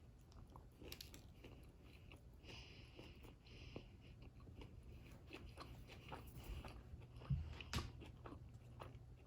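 Faint mouth sounds of someone chewing a bite of a chicken sub sandwich: soft crunching and smacking, with two louder clicks about seven and a half seconds in.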